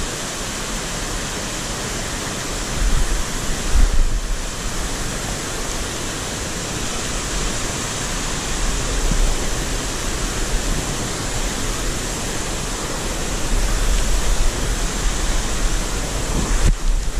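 Mountain stream rushing over rock ledges and small cascades: a steady, loud rush of water, with low rumbling on the microphone at times.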